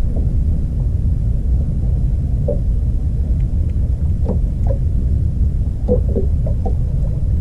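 Wind rumbling on the camera microphone, a steady low rumble, with a few faint short sounds over it.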